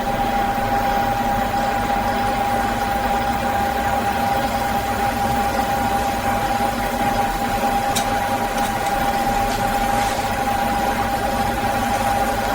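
Factory machinery running steadily: an even hum with a constant high-pitched whine, and a single faint click about eight seconds in.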